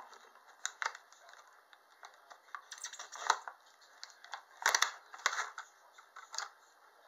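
Clear hard-plastic blister packaging being pried open and handled by hand: irregular crinkles and sharp plastic clicks, with the loudest cluster of clicks a little before the middle and again just after it.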